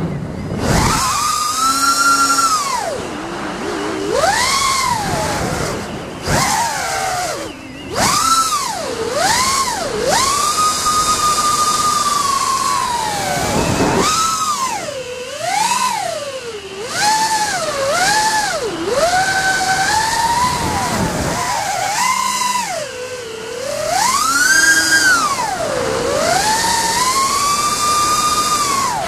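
Brushless motors and five-blade 5-inch props of an FPV quadcopter (RCINPOWER GTS 2205 2350KV motors), heard from its onboard camera. A high whine rises and falls in pitch over and over as the throttle changes.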